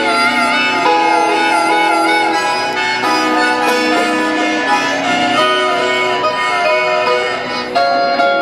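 Solo guitar picking a slow blues figure, played live through an arena PA.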